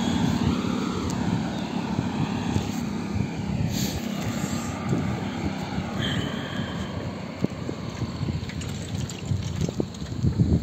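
Wind buffeting the microphone of a handlebar camera on a moving bicycle, a steady low rumble with ragged gusts and a few thumps near the end.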